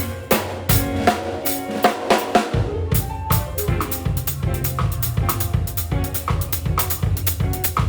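A live band playing, led by a drum kit: kick and snare drive a steady, busy beat over pitched instruments. The deep low end drops away for about a second and comes back in near the middle.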